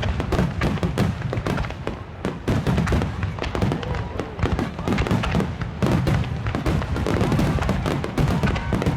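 Star mine fireworks barrage: shells launching and bursting in rapid, overlapping succession, a dense run of bangs and crackling with a continuous low rumble.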